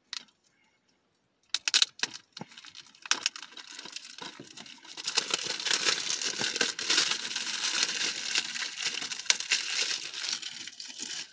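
Plastic shrink wrap being torn and crinkled off a DVD case: a few sharp clicks, then a dense crackling from about three seconds in.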